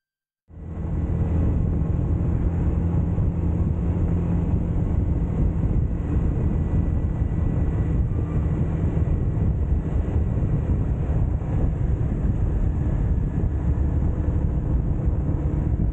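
Motorcycle riding at steady speed: a low engine hum mixed with wind rushing over the camera's microphone, starting about half a second in and holding steady.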